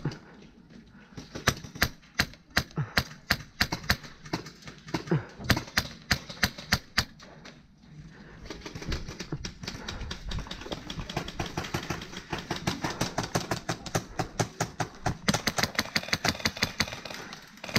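Airsoft guns firing: rapid sharp clicking shots, in scattered bursts during the first half and a denser, faster stream of shots through the second half.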